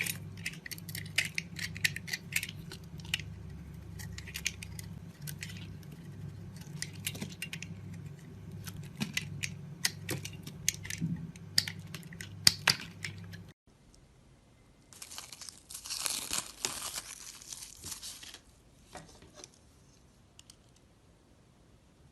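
Blade cutting and scraping into a bar of soap: a run of crisp clicks and scrapes. Then, about two-thirds through, a longer crumbly scraping rush as the soap is shaved, trailing off into small crackles.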